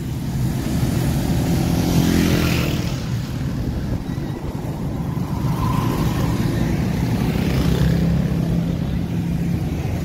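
A motor vehicle's engine running steadily as it drives along a road, with traffic noise around it. A deeper engine hum swells twice, about two seconds in and again near the end.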